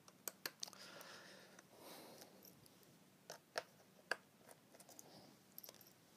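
Small, sharp, irregular clicks and taps of a precision screwdriver and loose screws against the MacBook Pro's aluminium bottom case as the case screws are worked out, with a soft handling rustle about one and two seconds in. Otherwise quiet.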